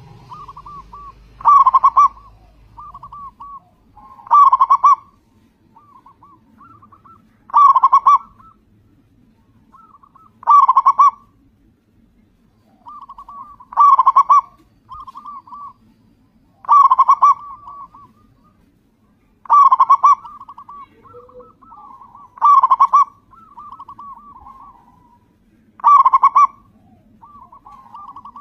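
Local zebra dove (perkutut) singing: a loud burst of rapid cooing notes about every three seconds, with softer trilling coos between the bursts.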